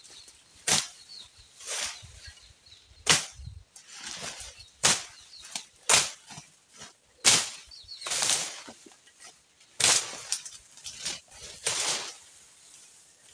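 A hand blade slashing through brush, about one swing a second, each cut a sharp swishing chop.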